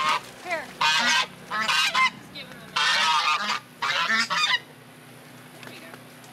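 Domestic geese honking, about five loud, harsh honks in quick succession as they are netted.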